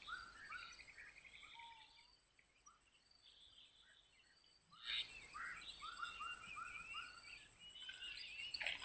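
Faint chirping of small birds, many short quick calls, dropping out to near silence for a few seconds about two seconds in and then resuming.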